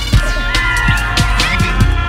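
Background music with a steady kick-drum beat, deep bass and gliding synth tones.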